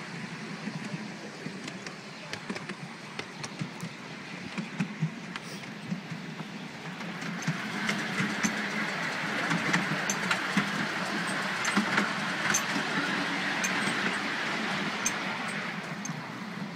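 Miniature steam railway train running, ridden in an open passenger car, a steady rumble with scattered clicks from the wheels on the track. It grows louder for several seconds in the middle while the train runs through a tunnel, then eases off.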